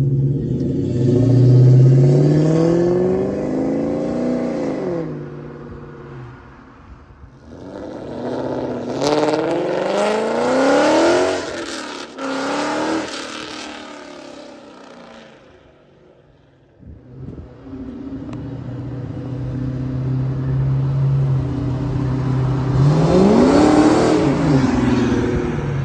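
Ford Mustang V8 with aftermarket exhaust being free-revved while parked: the pitch rises and falls in a couple of blips, the engine sound dies away near the middle, then it returns to a steady idle and is blipped once more near the end.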